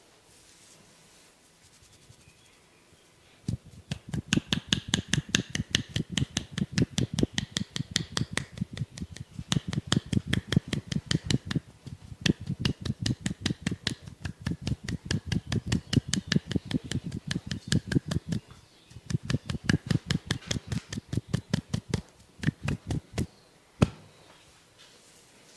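Rapid, rhythmic percussive massage: hands striking the body about five times a second in chopping or tapping strokes, with two short pauses. A single sharp click comes near the end.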